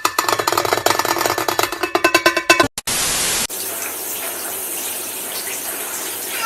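Drum kit playing a fast rhythm that cuts off about two and a half seconds in, then a brief burst of hiss like static, followed by the steady rush of water running from a tap.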